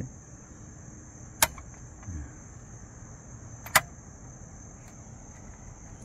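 Two sharp clicks from the mechanism of a 1945 Hermes Baby portable typewriter being handled, one about a second and a half in and one near four seconds, over a steady high-pitched trill.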